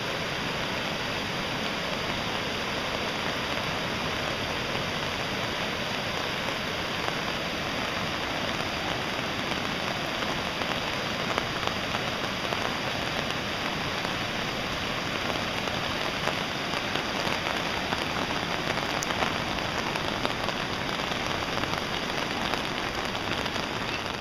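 Steady rush of water, an even hiss with a few faint ticks, from the heavy rain and flooding.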